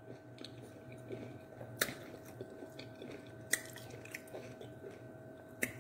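A person chewing a mouthful of food close to the microphone, with soft wet mouth sounds. A metal fork clicks sharply against the plate three times, about two seconds in, midway and near the end.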